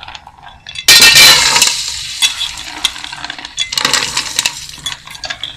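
Washed chana dal poured into hot ghee in an aluminium pan: a sudden loud rush of sizzling and rattling grains about a second in, fading slowly while the dal is spread by hand, with scattered clicks of grains on the metal.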